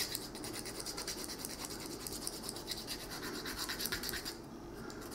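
Needle file scraping over the solder seam of a small brass lure in quick back-and-forth strokes, levelling off the excess solder. The strokes pause briefly a little after four seconds in.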